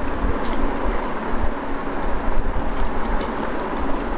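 Eating sounds: small wet clicks and smacks from rice and dal being mixed and eaten by hand, over a steady background hiss.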